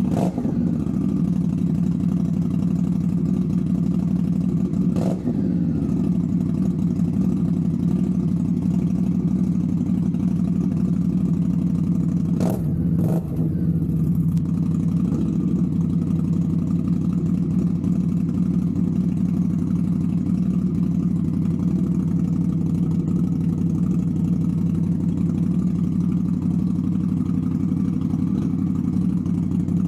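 2023 Indian Scout Bobber Twenty's V-twin engine idling through aftermarket Tailgunner "Six Shooters" slip-on exhausts. It gets brief throttle blips near the start, about five seconds in, and twice around the middle, each a quick rise and fall in pitch.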